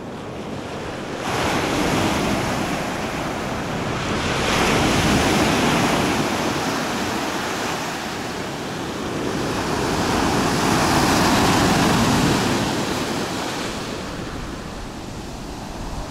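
Sea surf breaking and washing up a sandy beach: a continuous rushing wash that swells and ebbs, rising about a second in, again around four to six seconds and again around ten to twelve seconds.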